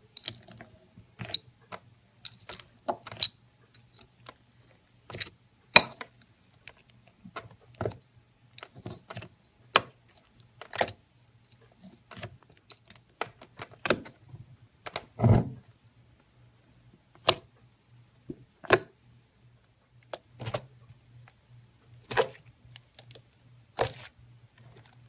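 Slime being poked, pressed and stretched by hand, giving irregular sticky clicks and pops, with a longer squish about fifteen seconds in.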